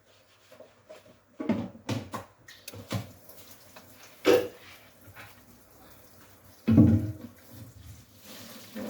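Scattered knocks and clatter of things being handled in a small kitchen, with a sharp knock about four seconds in and a loud low thump about seven seconds in. A steady rushing noise starts near the end.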